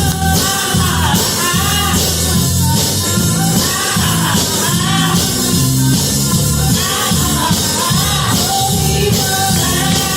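Church worship music: a band with drums and bass guitar playing, with a voice singing the melody over it.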